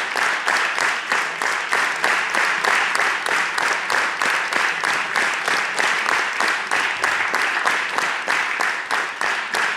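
Concert-hall audience applauding, the clapping falling into a steady rhythm of about three beats a second.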